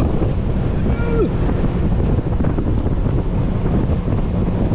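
Strong wind buffeting the microphone, a heavy low rumble, over the rush of waves and water.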